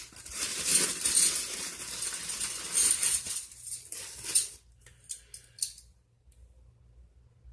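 Aluminum carabiner clips clinking and rattling together, with plastic packaging rustling, as they are handled out of their bag. A few sharp separate clicks come about five seconds in.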